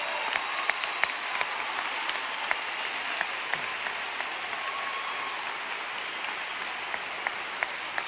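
Large crowd applauding steadily, a dense wash of clapping with individual sharp claps close by standing out.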